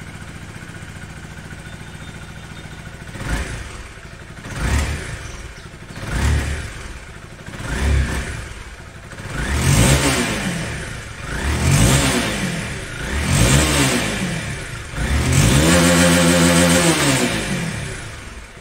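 Honda CBR250R's single-cylinder engine, through a loud exhaust, idling, then blipped seven times with the throttle, each rev rising and falling back to idle. Near the end it is held high for about two seconds before dropping back to idle.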